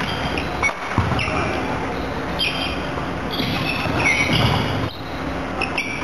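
Busy sports-hall din with sports shoes squeaking on the wooden court floor several times, the squeaks coming a few seconds in. Faint knocks and distant voices sound behind them, echoing in the large hall.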